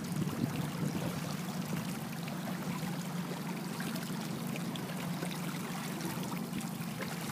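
Water rushing and splashing against a moving boat's hull, steady throughout, over a constant low hum.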